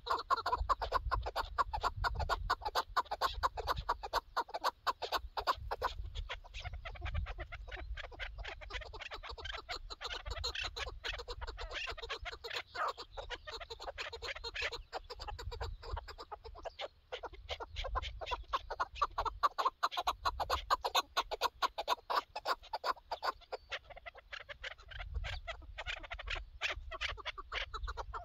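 Chukar partridges calling in long, continuous runs of rapid clucking notes. Wind buffets the microphone throughout.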